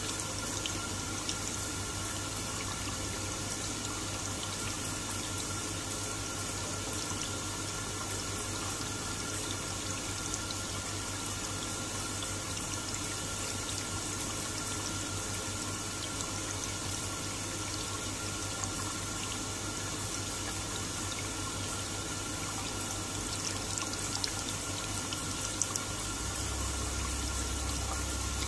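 Water running steadily from an electronic sensor faucet and splashing into a full container under the spout. The faucet is running on because the container in front of its sensor keeps it triggered.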